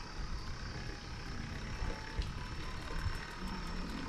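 Low, uneven rumble of wind buffeting the microphone, with a faint steady high-pitched tone in the background.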